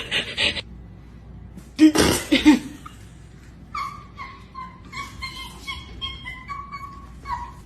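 A dog vocalizing: a couple of loud, sharp sounds about two seconds in, then a run of short, high-pitched whines.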